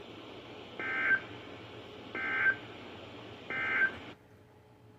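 Three short, buzzy digital data bursts about a second apart from a NOAA Weather Radio broadcast, over faint hiss: the SAME end-of-message code that closes an emergency alert. The broadcast audio cuts off about four seconds in.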